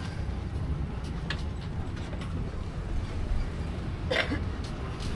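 Steady low rumble of a tourist road train riding slowly along a street, heard from aboard. Two brief higher-pitched sounds break in, one a little over a second in and one about four seconds in.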